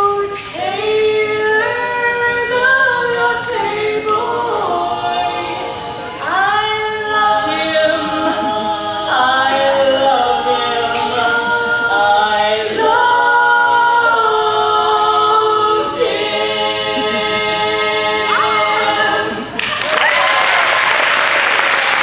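Women's barbershop quartet singing a cappella in close four-part harmony, closing on a held final chord. About twenty seconds in the singing stops and audience applause breaks out.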